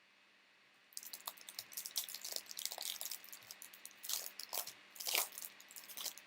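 A Panini Prizm hobby pack's foil wrapper being torn open and crinkled: a dense run of crackling starts about a second in and stops near the end.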